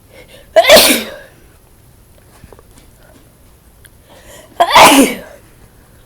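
Two sneezes, about four seconds apart.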